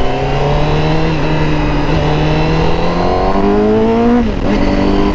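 Honda CBR1000RR-R Fireblade SP's inline-four engine through its Akrapovic exhaust, pulling under acceleration with its pitch rising slowly. About four seconds in the pitch drops sharply, then the engine carries on at a lower, steadier note.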